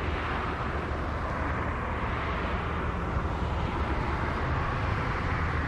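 Steady outdoor background noise, an even rumble and hiss with no distinct events, such as distant traffic or wind on the microphone.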